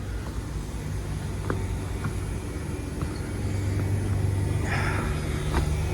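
Carrier 25VNA Infinity heat pump outdoor unit running steadily, its variable-speed inverter compressor and fan giving a low, even hum. A brief hiss comes about five seconds in.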